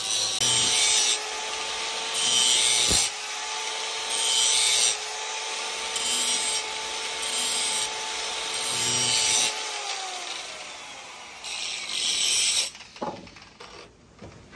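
Electric angle grinder with an abrasive disc running with a steady whine, pressed onto a steel axe head in repeated passes about every two seconds, each pass a harsh grinding hiss. Near the end the motor winds down, and a knock follows.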